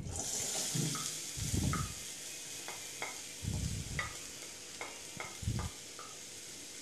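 Sliced onions sizzling in hot oil in a metal kadai, the hiss starting suddenly as they are tipped in. A wooden spatula stirs them, scraping and knocking against the pan every second or so.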